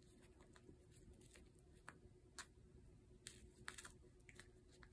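Near silence, with faint, scattered soft clicks and scratches, mostly in the second half, as a cat bites and claws a small toy mouse on a quilted bed cover.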